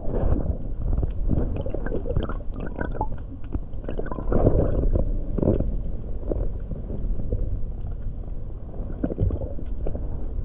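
Muffled underwater gurgling and bubbling, low and irregular, with scattered faint ticks and knocks and a louder surge of bubbling about four to five seconds in.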